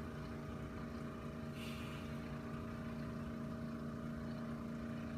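Steady low mechanical hum of room machinery, with one soft hiss about two seconds in.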